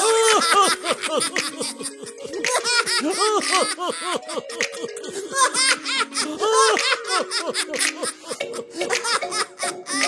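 High-pitched cartoon-style giggling and chattering, in quick short bursts, over light background music.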